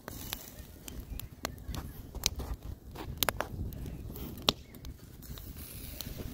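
Wood campfire crackling, with sharp irregular pops about two or three times a second over a low steady rush.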